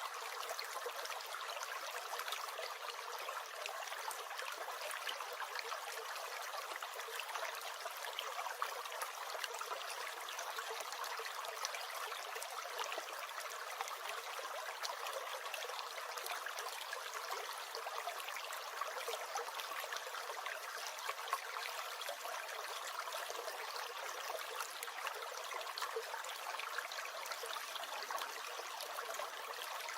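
Small stream gurgling and trickling steadily, with a fine patter of tiny splashes.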